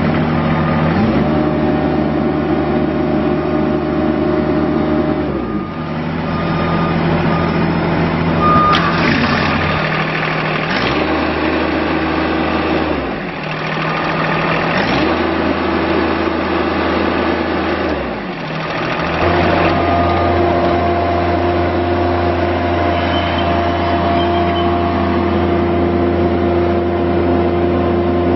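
Toro TX 525 mini skid steer's Kubota diesel engine running, its speed dropping and rising again several times as the machine is worked, then holding steady for the last third.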